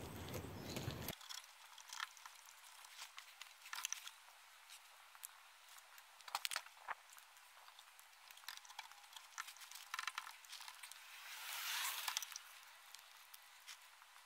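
Faint scattered clicks and light rustling from hands handling parts and tools on the kit car's exhaust, with a short rustle near the end. A low background noise cuts off abruptly about a second in.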